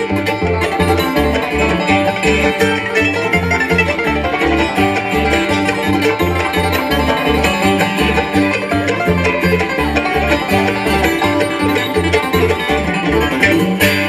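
Bluegrass string band playing a tune, the banjo out front over guitar and steady bass notes on an even beat.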